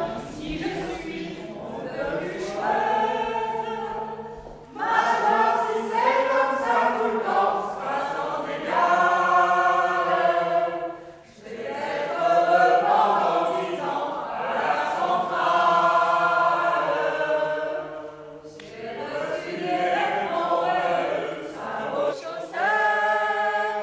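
A mixed group of men's and women's voices singing together in chorus, in phrases a few seconds long with short breaths between them.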